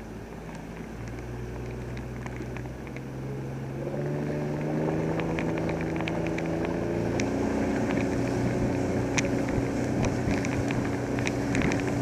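Outboard motor of a flats skiff running under way, its pitch stepping up about four seconds in and again near seven seconds as it gets louder, with water slapping and ticking against the hull.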